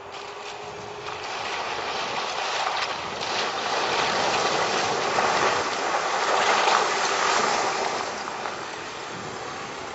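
VW Transporter 4x4 van driving through a flooded track, its tyres splashing and churning through the water over the engine's steady note. The splashing grows louder as the van approaches and passes close, peaking about six to seven seconds in, then eases near the end.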